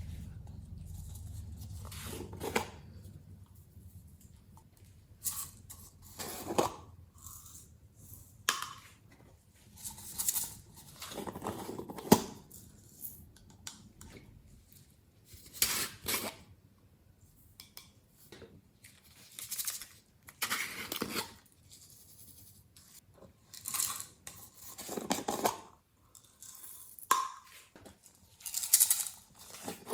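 Glossy slime being mixed and squished, making irregular sticky crackles and squelches, with one sharp pop about midway.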